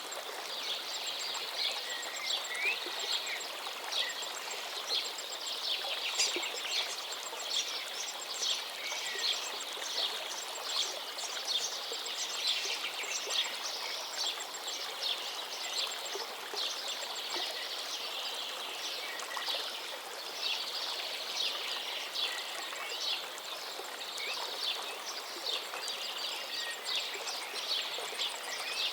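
River water flowing steadily, with many small birds chirping and twittering over it in quick, frequent calls.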